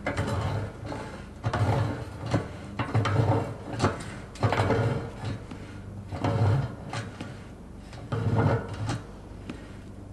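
The rusty screw thread of a boat stand being wound up with a wrench in repeated strokes, a grinding rub about every second and a half with a few sharp clicks, as the stand's pad is tightened against the hull.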